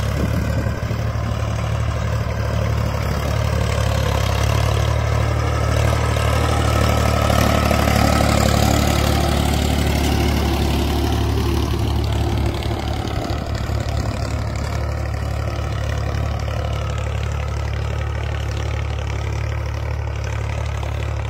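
Ford 3600 tractor's three-cylinder diesel engine running steadily under load while pulling a disc harrow through ploughed soil. It grows louder as the tractor passes close by about halfway through, then fades a little as it pulls away.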